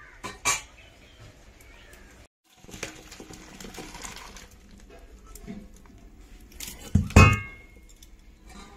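Metal cookware being handled: light knocks and clinks, then a loud ringing clang of a metal pot or wok about seven seconds in.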